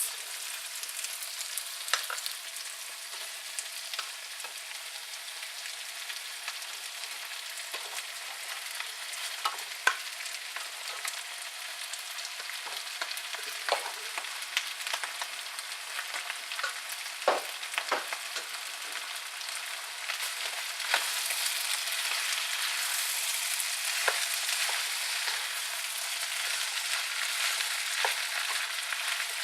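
Chicken fried rice sizzling in a frying pan, with brown rice just added to chicken, peas and carrots: a steady hiss broken by the scattered taps and scrapes of a utensil stirring it. The sizzle grows louder about two-thirds of the way through.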